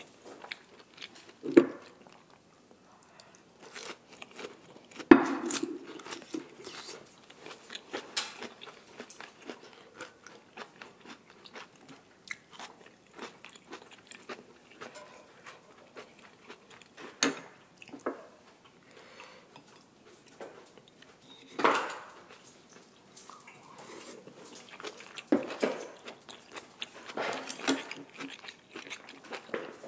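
Close-up chewing and biting of grilled beef, with soft crunches. Scattered sharp knocks and clacks break in every few seconds, the loudest about five seconds in.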